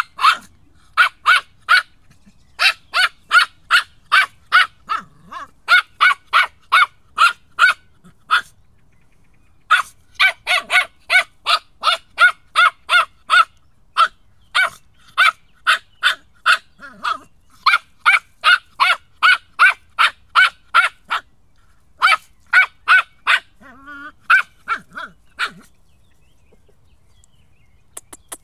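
Three-month-old border terrier puppy barking at a fox through a fence: rapid, high-pitched barks at about three a second, in long runs with short pauses, falling quiet a few seconds before the end.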